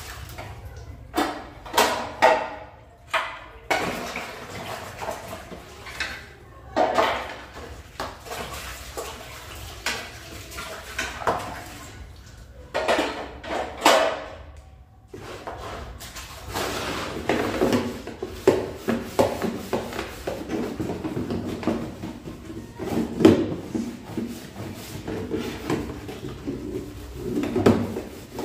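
Clear plastic refrigerator trays being dunked and rinsed in a basin of water and scrubbed: irregular water splashing and sloshing with hollow plastic knocks and rattles.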